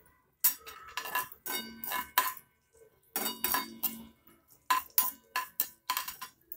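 Metal spatula scraping and clanking against a steel kadai in about a dozen uneven strokes, the pan ringing after each, as mustard seeds, cumin and curry leaves are stirred in oil for tempering.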